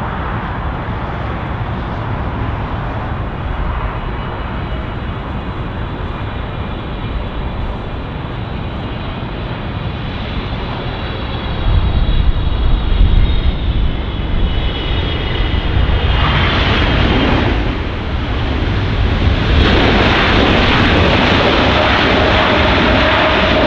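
Boeing 777-300ER jet airliner with GE90 engines coming in to land. Its engines run steadily with a high whine, growing noticeably louder about halfway through.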